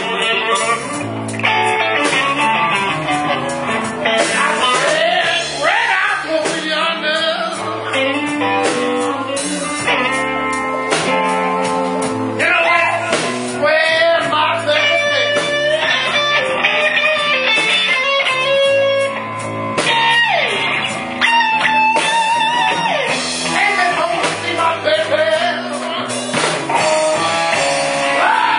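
Live blues band playing a slow blues on electric guitar and drums, with a harmonica cupped against a vocal microphone playing long bent notes over the band.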